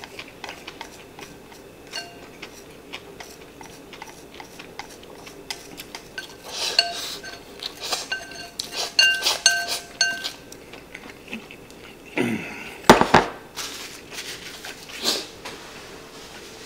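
Chopsticks clicking and scraping against a ceramic rice bowl as the last rice is shovelled in, with a run of ringing taps on the bowl in the middle and a louder knock about thirteen seconds in.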